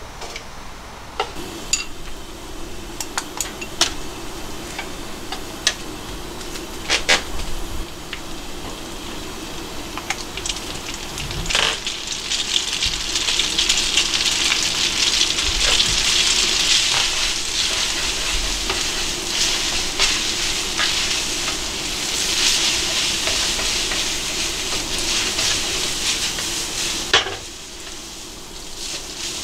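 Wooden chopsticks clicking and knocking against a steel pot and frying pan as boiled spaghetti is lifted across. About twelve seconds in, a loud steady sizzle starts as the spaghetti fries in the hot pan, and it cuts off suddenly after a click near the end.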